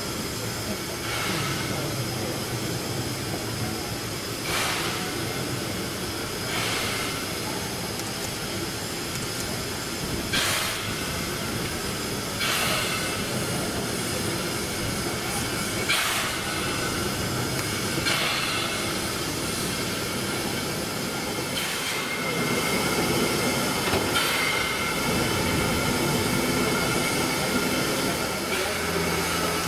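NSWGR 30 class 4-6-0 steam locomotive 3016 moving slowly, with a steady hiss of steam and sharp beats every couple of seconds.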